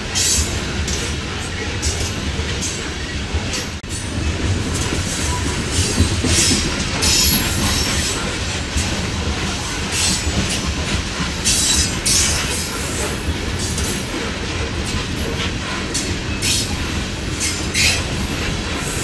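Empty coal cars of a freight train rolling past: a steady low rumble and clatter of steel wheels on rail, cut by many brief high-pitched wheel squeals and screeches.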